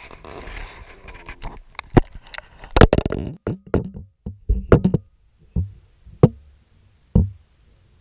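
GoPro Hero 4 in its waterproof housing being handled and dunked in water: a brief sloshing rush, then irregular sharp knocks and clunks on the case that thin out to a few single knocks near the end.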